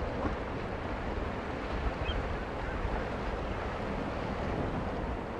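Steady ambience of wind and sea: an even rushing of wind and open water with no distinct events.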